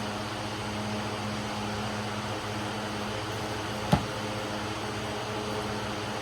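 Steady machine hum with a single sharp knock about four seconds in.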